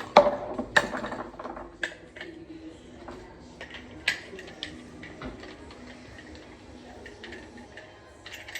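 Metal pieces and tools being handled: a loud ringing clang just after the start, then a few sharper knocks and scattered light clicks.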